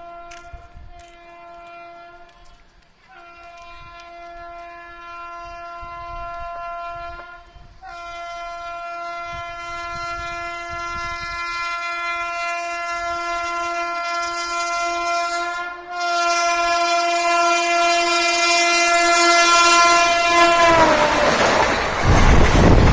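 WAP7 electric locomotive's horn sounding in three long blasts, the last held for about thirteen seconds, growing steadily louder as the express approaches at speed. Near the end the horn drops in pitch and stops as the locomotive passes, and the loud rush of the train speeding by takes over.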